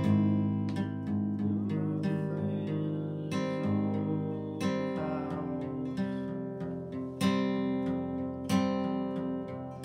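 Acoustic guitar music: plucked and strummed chords whose notes ring on between strokes.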